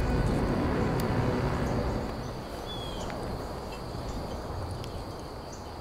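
Outdoor wind rumble that eases off about two seconds in and leaves a quieter hiss. A single short, high bird chirp comes near the middle.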